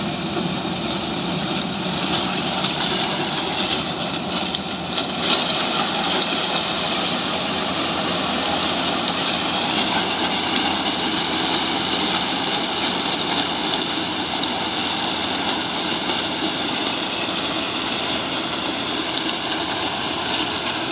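Sugarcane harvester cutting cane and loading a ten-wheel truck driving alongside: a steady diesel engine drone under a rushing noise of chopped cane blowing from the elevator spout.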